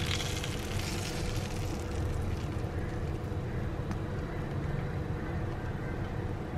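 Hot pan sauce sizzling as it is poured from a frying pan over fried chicken drumsticks on a plate, strongest in the first second and then dying away, over a steady low rumble.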